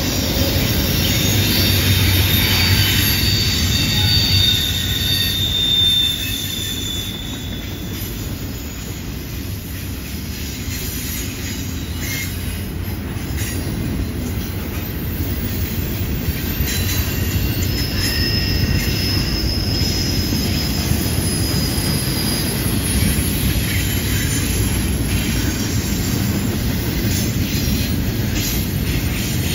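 Freight train's autorack and double-stack container cars rolling past on a curve with a steady low rumble. Thin high wheel squeals, flanges grinding against the rail in the curve, sound over the first several seconds and again about halfway through.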